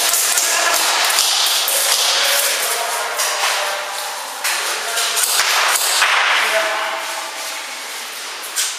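Airsoft guns firing: a dense run of sharp snaps that thins out and grows quieter after about three seconds.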